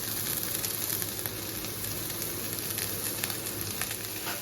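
Chopped onions and green chillies frying in hot oil in a kadai, a steady sizzle with small crackles. They are being sautéed to cook off the raw onion smell.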